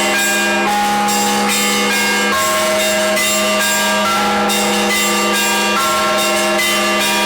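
Church bells rung together in a full peal: smaller bells of several pitches struck one after another, each ringing on, over the steady hum of a large bell.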